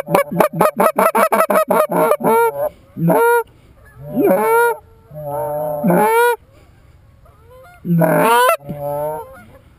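Goose honking: a fast, even run of short honks and clucks for the first two and a half seconds, then five longer single honks with a break in pitch, about one to two seconds apart.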